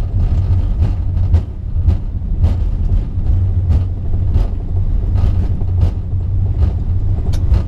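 Airbus A380 on its landing rollout, heard from the cockpit: a loud, steady low rumble of the wheels and airframe on the runway, with a regular thump about twice a second.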